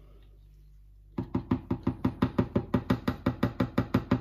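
A utensil mixing the marinade in a plastic tub, knocking rapidly and evenly at about six strokes a second, starting about a second in.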